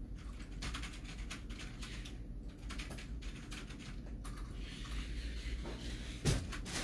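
Steady low hum with many faint, scattered light clicks, and a single sharp knock near the end.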